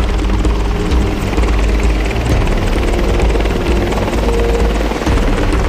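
AH-64 Apache attack helicopter flying low and close, its rotor and twin turboshaft engines running loud and steady.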